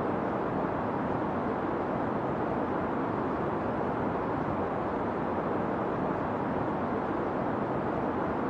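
Steady rain falling, an even rushing noise with no single drops standing out.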